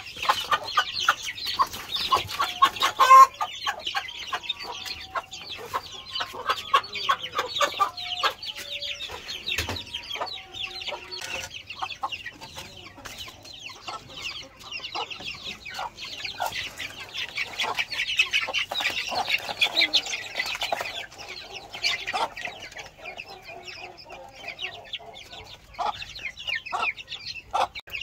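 A flock of Aseel chicks peeping continuously in a high, busy chorus while they are given feed, with a hen clucking now and then. A sharp knock sounds about three seconds in.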